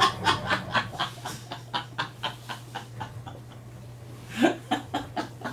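Men laughing hard in a small studio: a run of quick, rhythmic laughs that dies away about three seconds in, with a short laugh again near the end.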